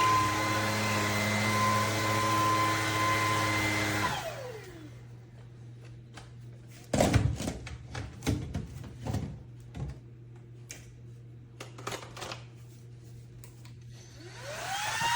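Bissell PowerClean FurFinder cordless stick vacuum running with a steady high whine. It is switched off about four seconds in, and the whine falls away as the motor spins down. A few clicks and knocks of handling follow, then near the end the motor is switched back on and winds up to speed.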